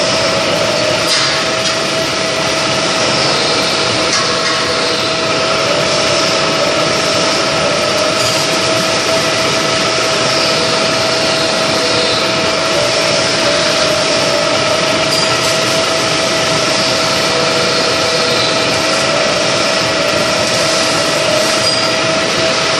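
A milling machine runs while a spiral end mill cuts a flat of a hexagon on a metal fitting held in a lathe chuck on a rotary table. It makes a steady, unbroken machining noise with a constant hum.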